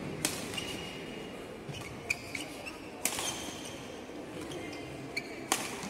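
Badminton rally: rackets strike the shuttlecock about four times, one to two and a half seconds apart, with short squeaks of court shoes on the wooden floor between the hits.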